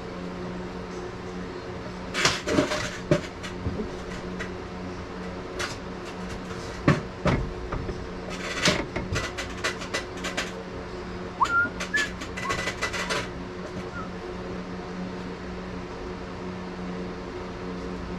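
Scattered clicks, knocks and rattles of things being handled, over a steady low mechanical hum. A few brief high squeaks come about two thirds of the way through.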